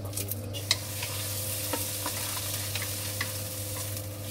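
Sausage pieces and sliced onion frying in hot oil in a pan, with a steady sizzle that swells about a second in as the onion goes in. A wooden spatula stirs the pan, giving scattered light clicks and scrapes.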